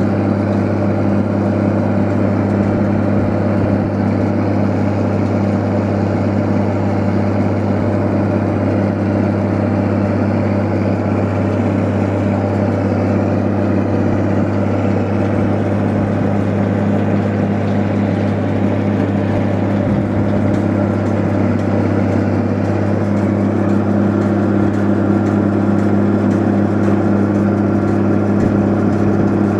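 Tractor engine running steadily at a constant speed, powering a Hesston 5500 round baler while baling.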